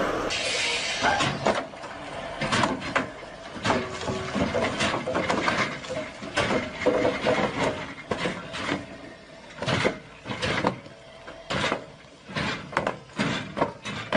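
Large concrete pipes rolling off the back of a moving flatbed trailer, a long run of irregular knocks and clatters as they drop onto the ground and strike one another.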